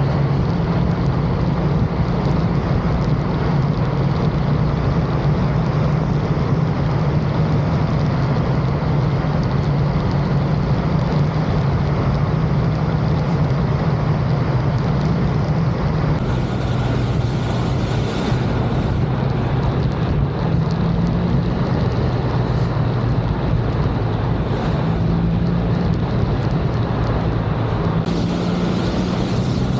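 BMW R1300GS Adventure's boxer-twin engine running at a steady cruise, its even drone mixed with loud wind and road rush from riding.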